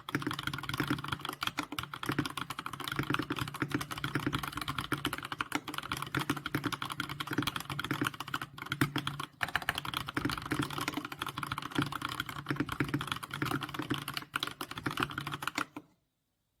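Fast, continuous typing on a Keychron K6 mechanical keyboard fitted with Bsun Olive tactile switches, a dense run of key clicks and bottom-outs that stops abruptly near the end.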